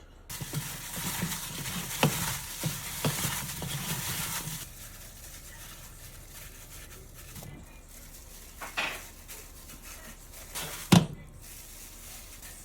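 Kitchen handling sounds: several seconds of rustling and scraping with a few sharp clinks of dishware and utensils as food is arranged in a dish, then quieter, with two single knocks later on.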